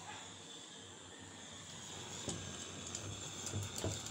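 Light, irregular knocks and scrapes from about halfway in, over a steady faint hiss and low hum, as a copper blowtorch is handled and set down against a clamped bandsaw blade.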